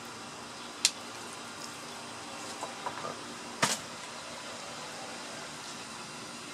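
Low steady background hum with two short sharp knocks, about a second in and again a little past halfway, from a fish and knife being handled on a wooden cleaning board.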